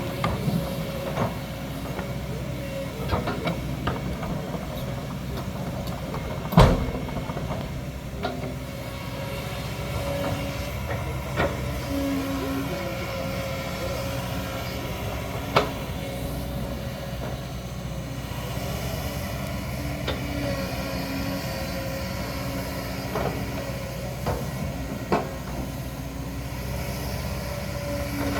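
Kobelco hydraulic excavator's diesel engine running steadily as it works, with a few sharp knocks. The loudest knock comes about six and a half seconds in.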